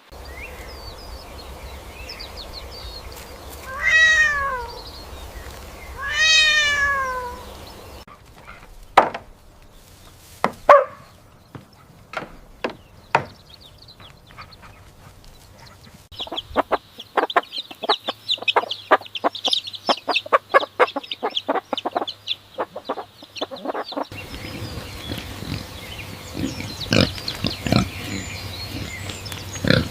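A run of short animal sound clips, one after another. First come two drawn-out calls that rise and fall in pitch, then a few sharp single calls, then a fast string of short calls.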